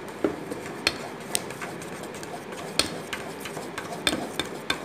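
Wire whisk beating a cocoa biscuit-cake batter in a steel bowl: a wet stirring hiss with irregular sharp clinks, several a second, as the wires strike the bowl.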